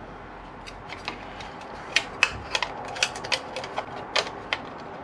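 Spanner on the bolts of a motorcycle's rear-set footpeg bracket, clicking in short irregular runs as the bolts are run up to touch. The clicks start about a second in and are thickest in the middle.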